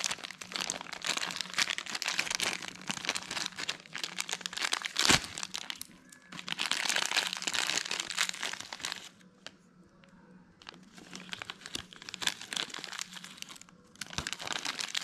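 A small clear plastic bag crinkling as it is handled, in irregular spells of crackling with a pause near the middle. A single sharp snap about five seconds in is the loudest sound.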